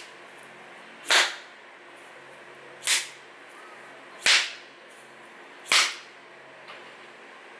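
Four short sharp cracks with a hissing tail, about a second and a half apart, each fading within a fraction of a second, in time with fists thrust at the camera.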